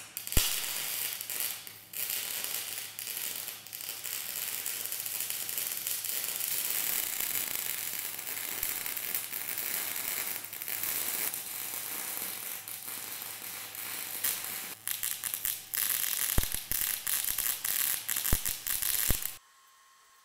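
MIG welding on the steel of a loader bucket: the arc crackles and hisses steadily, with a short break about two seconds in and a few sharp pops near the end, then cuts off suddenly when the trigger is released.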